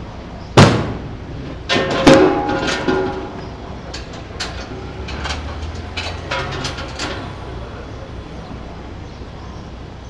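Metal LP gas cylinders clanking on a delivery truck's rack. There is one loud metallic bang about half a second in, then a string of irregular ringing clanks that thins out by about seven seconds.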